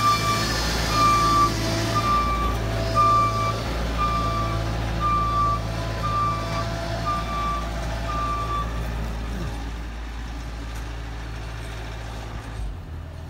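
Bobcat Toolcat utility vehicle backing up: its backup alarm beeps steadily, about three beeps every two seconds, over the running diesel engine. The beeping stops about nine seconds in while the engine keeps running.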